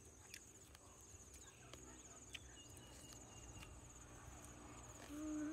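Steady high-pitched insect trilling with a few light clicks, and about five seconds in a short hummed 'mmm' from a person eating, the loudest sound.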